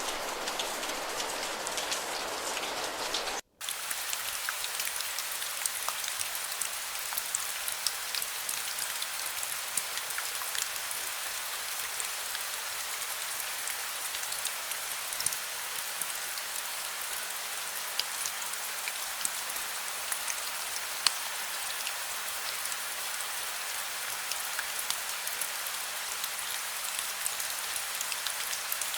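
Steady rain falling, a dense hiss of drops with many small individual drop ticks. The sound drops out for an instant about three and a half seconds in, then carries on as a lighter, higher-pitched patter.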